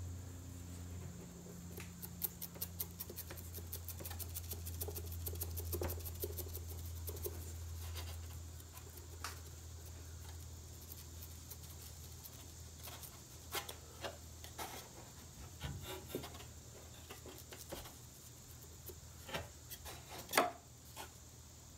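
Handling noise from gluing thin wooden pieces inside a guitar body: glue being rubbed on with a foam applicator and wood pressed into place, heard as a run of soft quick ticks, then scattered light taps and clicks, the sharpest near the end.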